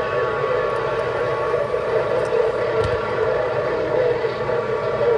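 Steady, siren-like tone over static from a CB radio's speaker. A strong signal is coming in over skip and holds the S-meter at about 20 dB over S9.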